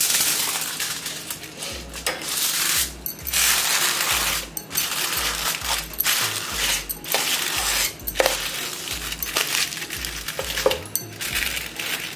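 Aluminium foil crinkling in repeated bursts as hands press and crimp it down around the rim of a bowl.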